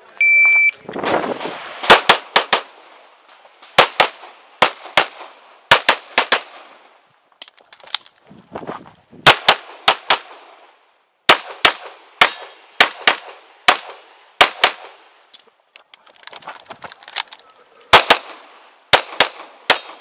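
An IPSC shot-timer start beep, then a semi-automatic pistol firing a long course of fire: quick double-taps and short strings of shots. Pauses between groups are filled with the rustle of the shooter moving between positions.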